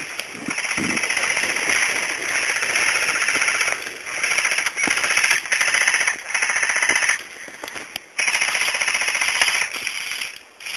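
Airsoft gun firing on full auto in three long bursts of about three seconds each, with brief pauses between them. Each burst is a fast, even rattle of shots.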